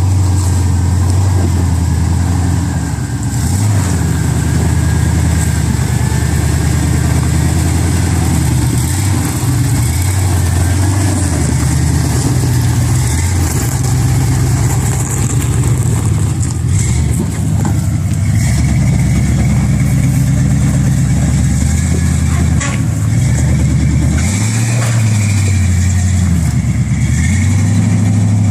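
Off-road 4x4 engine running at low speed, its pitch rising and falling as the throttle is worked, with a few sharp knocks.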